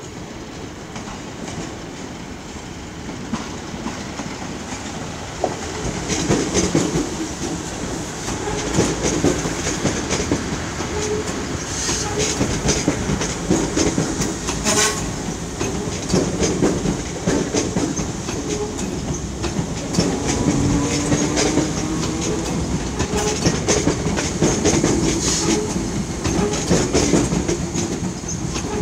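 Electric multiple unit in carmine-and-cream livery passing close by, its wheels clicking irregularly over pointwork and rail joints. The noise builds about five seconds in and stays up while the long train goes by, with one sharp louder click about halfway through.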